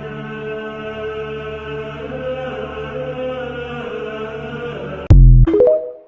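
Chant-like droning music with long held notes, broken about five seconds in by a sudden, much louder deep blast, then a few short pitched notes before the sound stops abruptly.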